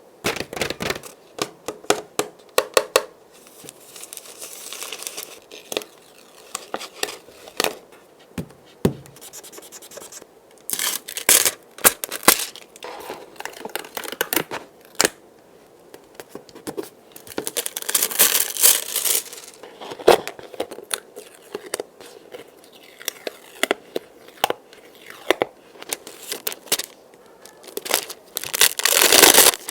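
Crinkly packaging being handled and torn, with rustling, scratching and many sharp clicks and taps coming in irregular spells.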